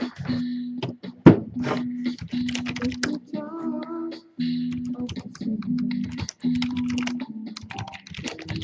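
Computer keyboard typing, a run of quick clicks with a sharper click about a second in, over background music with steady held notes.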